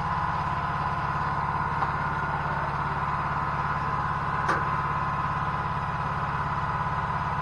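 Portable generator's small engine running steadily with an even fast pulse and a constant whine, and one sharp click about four and a half seconds in.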